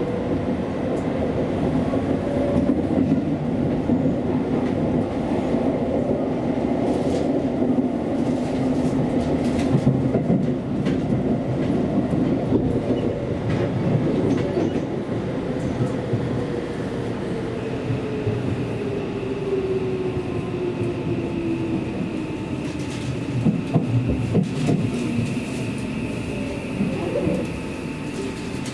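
Seibu Railway electric commuter train running, heard from inside the car: a steady rumble of wheels on rail. In the second half a motor whine falls steadily in pitch as the train slows, and a steady high tone joins it about two-thirds of the way through.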